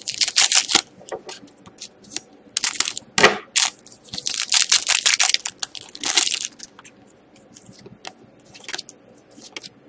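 Foil trading-card pack being torn open and its wrapper crinkled, in several bursts of crackling over the first six seconds or so, followed by quieter handling of the cards.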